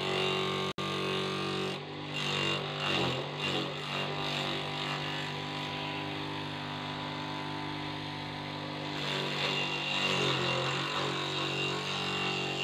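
Small electric grass chopper running, its motor humming steadily while handfuls of leaves are fed in and cut up. The chopping rattles and the motor note sags as a load goes in, a couple of seconds in and again about ten seconds in.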